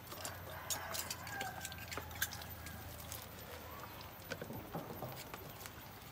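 Irregular light clicks and knocks, the sharpest about two seconds in.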